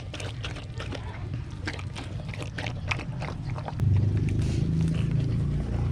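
Mother dog licking and chewing at a newborn puppy's umbilical cord: quick wet clicks and smacks. A low steady hum underneath grows louder about four seconds in.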